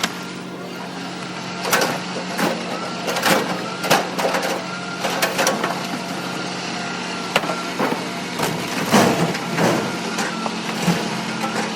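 Scrap metal clanking and knocking in irregular strikes as pieces are unloaded from a trailer, over the steady hum of an idling vehicle engine.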